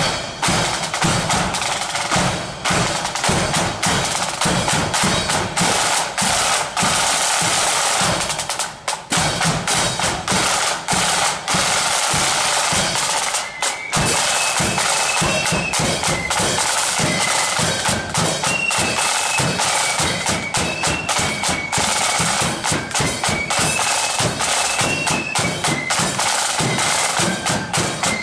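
Marching flute band: a rank of snare drums plays a rolling street beat. About fourteen seconds in, the flutes come in over it with a high, stepping melody.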